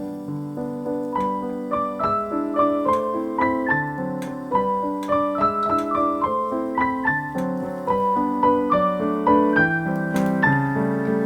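Background piano music: a steady melody of single notes over sustained chords.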